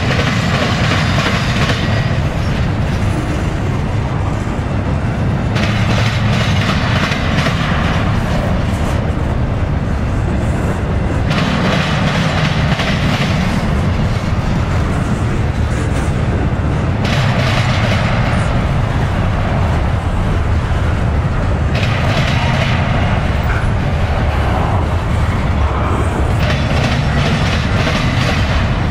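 Double-stack container freight cars rolling past close by: a steady low rumble of wheels on rail. A louder clatter comes in about every five and a half seconds as the cars go by.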